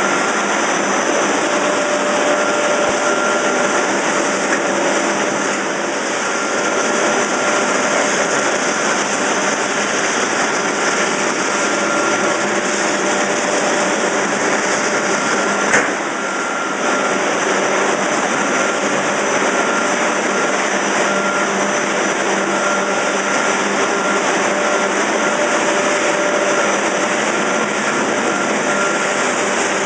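Pet food extrusion production line machinery running: a steady, loud mechanical hum and whir from motors, chain drives and conveyors, with a few constant tones over it. One sharp click about 16 seconds in, followed by a brief dip in the noise.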